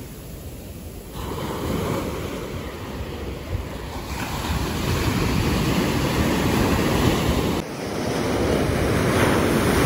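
Small surf waves washing up and foaming onto a sandy beach, with sea breeze rumbling on the phone's microphone. The sound grows louder about a second in and shifts abruptly twice more.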